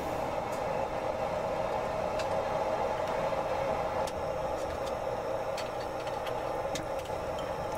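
Gas forge burning with a steady rushing noise, with a few faint ticks over it.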